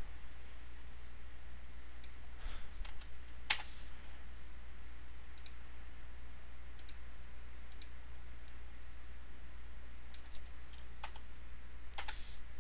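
Irregular clicks of a computer mouse and keyboard as a 3D scene is worked on, a handful at a time with gaps between, over a steady low hum.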